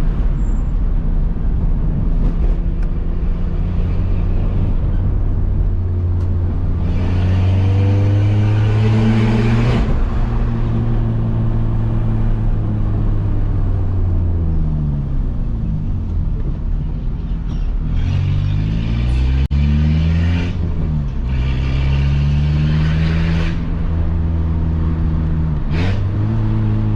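Peugeot 206 1.4 four-cylinder petrol engine with a straight-pipe exhaust (no muffler) pulling through the gears in city driving. Its pitch climbs under acceleration, drops at gear changes, and falls away off throttle several times.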